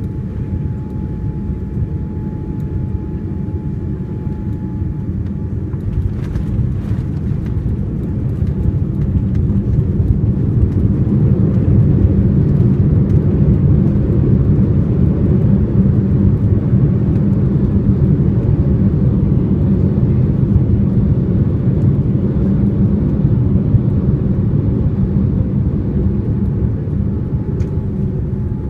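Cabin sound of a Boeing 787-9 landing, heard from a window seat behind the wing: a low, steady rumble with a faint bump about six seconds in at touchdown, then the engines' reverse thrust and braking swell to a loud roar for about fifteen seconds, easing off near the end as the jet slows on the runway.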